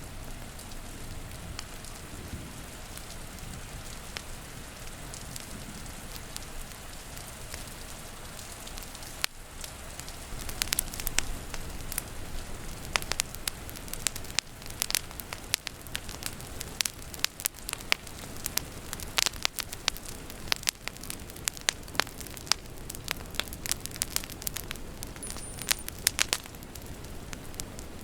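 Wood fire crackling, with sharp pops over a steady hiss of rain. The pops start about ten seconds in and then come often and irregularly.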